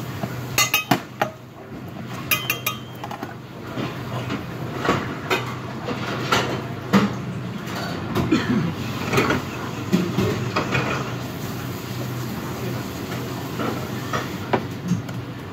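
Commercial kitchen work sounds: metal pans, pots and utensils knocking and clinking against steel, some strikes ringing briefly, over the steady hum of the extraction hood.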